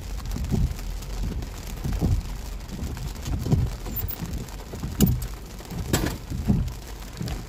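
Rain falling on a car, heard from inside the cabin, over a steady low rumble, with a soft regular beat a little faster than once a second and a couple of sharp clicks about five and six seconds in.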